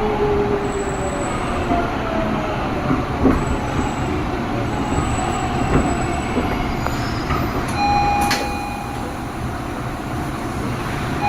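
Subway train running along the track, heard from on board: a steady dense rumble of wheels on rails, with faint whining tones and a few clicks. A brief squeal-like tone comes near the end.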